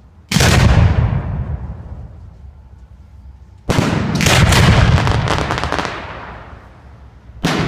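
Aerial fireworks bursting overhead: a loud boom about a third of a second in that rolls away over a couple of seconds, a second burst about three and a half seconds in followed by a run of sharp cracks, and a third just before the end.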